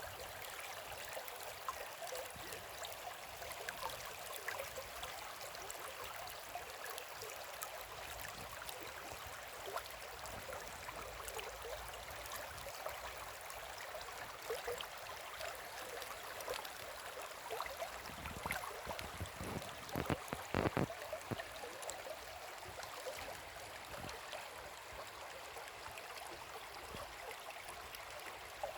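Shallow river babbling and flowing over stones, a steady close-up rush of water. A few dull low thumps come in a cluster about two-thirds of the way through.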